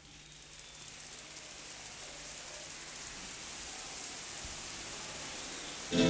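A steady, rain-like hiss that fades in over the first few seconds and then holds. Near the end a louder pitched sound comes in as music begins.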